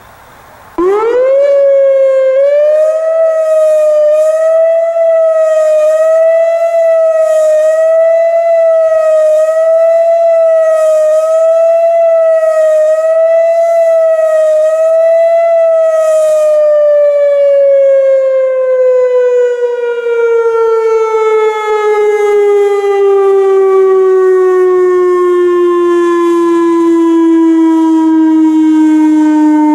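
Whelen WPS 2740 electronic outdoor warning siren starting up close by: it rises quickly to a steady tone that wavers regularly about every second and a half as the rotating head turns. About halfway through it begins a long, slow fall in pitch as it winds down.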